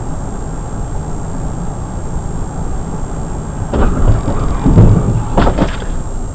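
Car driving, heard from inside through a dashcam: a steady low road and engine rumble. Two louder rushing surges come about four and five and a half seconds in.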